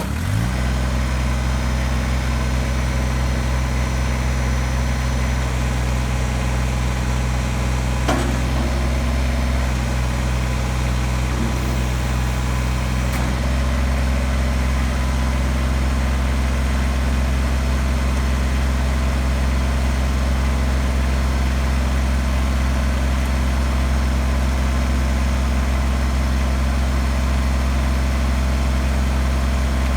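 Kubota BX25D compact tractor's three-cylinder diesel engine catching just after starting, then idling steadily. Around 13 seconds in, the engine note steps up slightly.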